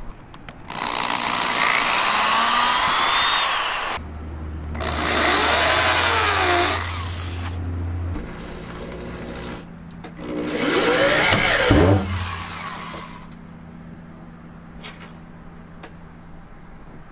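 Power drill boring and countersinking screw holes through soft pine boards in three runs of a few seconds each, the pitch sliding up and down within each run. A quieter low steady hum fills the last few seconds.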